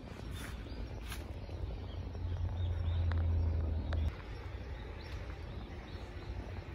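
Outdoor park ambience: a steady low rumble that grows louder and then drops suddenly about four seconds in. A few faint bird chirps and a couple of light clicks sound over it.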